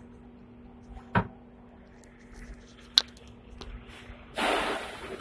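Cab of a retro fifth-generation Hong Kong tram standing at a stop: a steady low hum, two sharp clicks about a second and three seconds in, then a loud hiss lasting under a second near the end.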